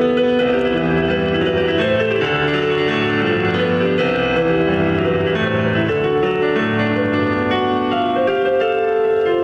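Solo piano playing held chords over a bass line that moves every second or so.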